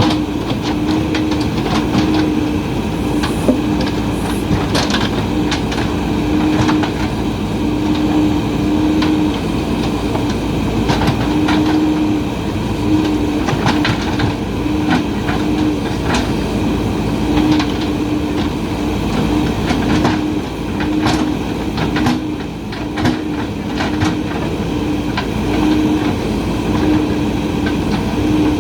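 JCB backhoe loader's diesel engine running under load with a steady pitched hum that swells and fades every second or so, over scattered metallic knocks and clanks from the working machine.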